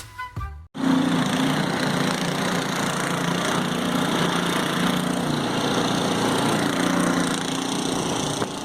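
A small engine running steadily, a constant drone with a rushing hiss over it, starting about a second in as music cuts off.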